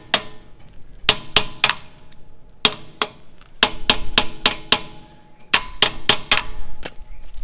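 Hammer blows on a steel split-rim wheel, knocking off the rim's locking catches: about eighteen sharp strikes in quick clusters, each ringing with a metallic tone.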